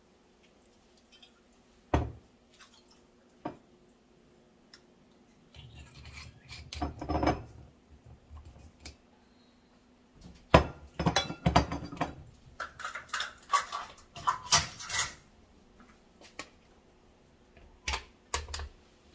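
Kitchen handling clatter: a rum bottle, a measuring cup and a glass blender jar knocked and set down on a countertop. There are a few single knocks, then a dense run of quick clinks and knocks in the middle, and a couple of clicks near the end as the blender lid is pressed on.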